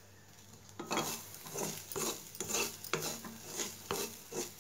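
Wooden spatula scraping and stirring grated coconut and cashews roasting in ghee in a metal pan, in quick repeated strokes about two to three a second, starting about a second in.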